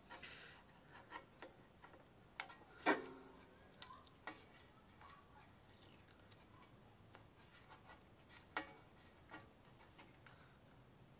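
Faint scraping and scattered small clicks of a razor-blade scraper lifting an old decal off a painted steel case, with a few sharper clicks, the loudest about three seconds in.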